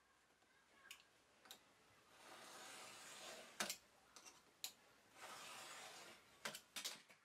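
Marking knife drawn along a square, scoring a line into a walnut board: two faint scratchy strokes, with a few light clicks in between.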